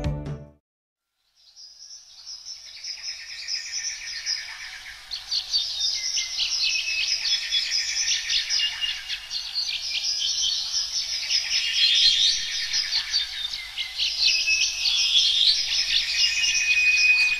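Many birds chirping and twittering together in a dense, overlapping chorus of quick high chirps, fading in about a second and a half in.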